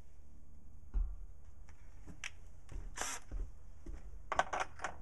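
Scattered metal clicks and clinks of tools being handled, with a short scrape about three seconds in and a quick run of clicks near the end. No drill is running.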